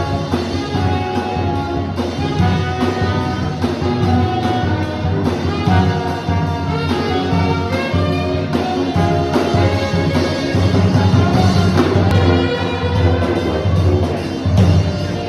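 Loud instrumental music with several instruments playing at once.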